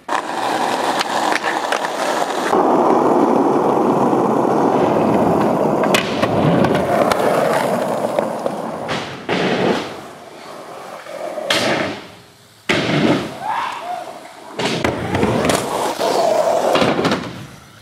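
Skateboard wheels rolling on concrete, with the board clacking sharply against the ground several times along the way.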